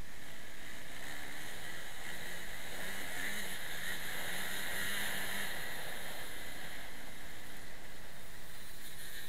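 Motocross bike engine running under load while riding, heard through a helmet camera with steady wind rush over the microphone; it grows louder for a few seconds in the middle.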